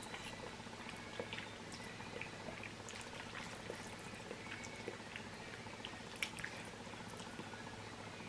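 Faint mouth sounds of eating noodles: scattered small wet clicks of chewing, with one sharper click about six seconds in, over a low steady hum.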